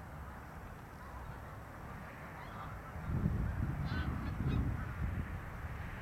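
Low rumble of wind buffeting the microphone, swelling in gusts about halfway through, with faint honking calls of distant waterbirds on the mudflat.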